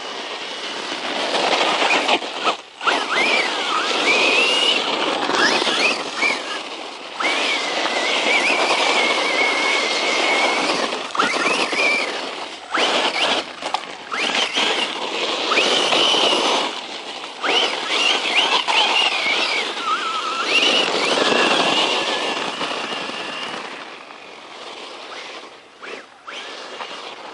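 Brushless electric motor of a 1/10-scale RC truck whining, its pitch rising and falling as the truck speeds up and slows, over a broad rushing noise. It drops out briefly a few seconds in and gets quieter over the last few seconds.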